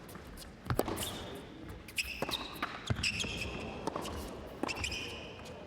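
Tennis rally on an indoor hard court: the ball is struck by rackets about four times, roughly a second apart, with shoes squeaking on the court between shots.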